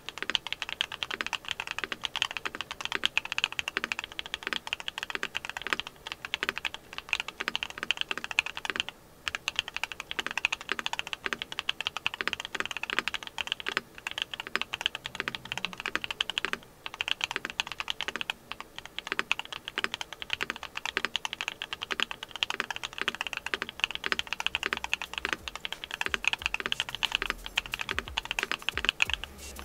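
Continuous fast typing on a mechanical keyboard fitted with hand-lubed Duhuk Lumia Matcha V4 Pro linear switches, a steady stream of thocky keystrokes. The typing breaks off briefly about nine seconds in and again about seventeen seconds in.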